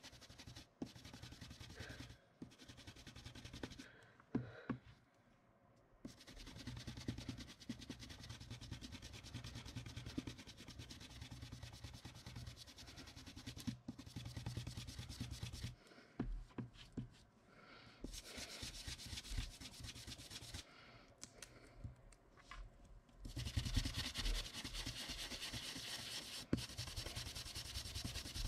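A small handheld tool scrubbing in quick circles over a paper stencil on card, blending black ink through it. This is a faint rubbing that stops briefly a few times and grows louder near the end.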